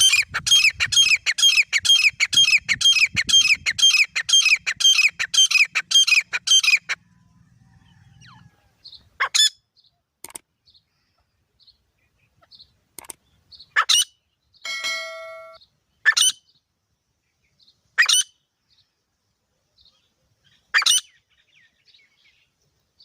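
Grey francolins (teetar) calling: a fast run of repeated, descending notes, about three a second, for the first seven seconds, then single sharp call notes every couple of seconds.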